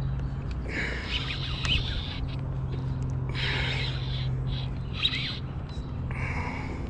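Birds calling in four short bouts of chirps and gliding notes over a steady low hum.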